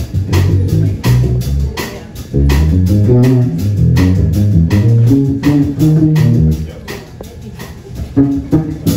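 Live band playing: a bass line with electric guitar over drums keeping a steady beat, with a quieter passage near the end.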